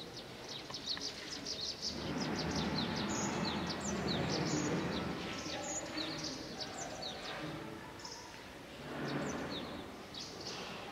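Small birds chirping over and over in short, quick, falling notes, over a steady outdoor background rush that swells louder for several seconds in the middle.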